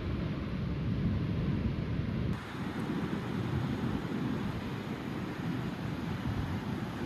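Thunderstorm wind and rain, a steady rushing noise. About two seconds in it switches abruptly to a brighter, hissier sound.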